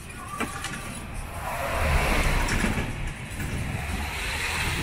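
Tourist road train rolling along a street, its engine and tyres giving a steady low rumble with a rushing hiss that swells about a second and a half in. A sharp click about half a second in.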